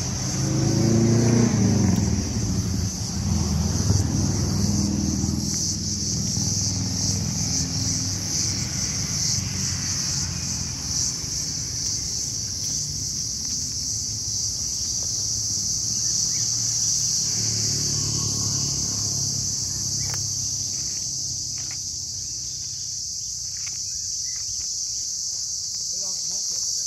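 Steady high-pitched insect chorus, with a motor vehicle's engine passing in the first few seconds and again about two-thirds of the way through.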